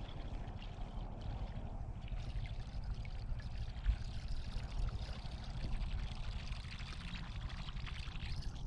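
Water trickling and lapping, with faint fine ticking, during a lure retrieve from a kayak.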